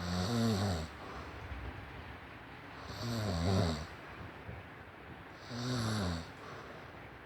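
A sleeping person snoring: three snores, each about a second long, coming about every two and a half seconds.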